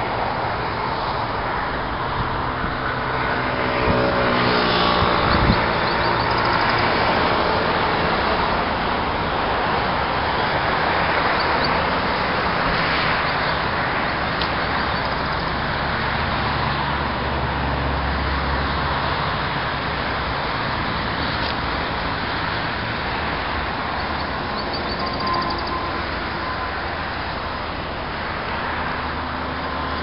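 Steady road-traffic noise, with a vehicle passing and its engine pitch falling about four to five seconds in.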